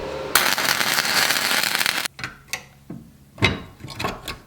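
Welding arc crackling steadily as the ends of a steel rod hoop are welded together, stopping suddenly about two seconds in. A few scattered knocks follow.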